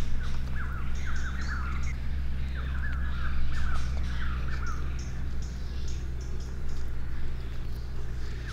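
Small birds chirping in quick runs of short notes, most of them in the first half, over a steady low hum.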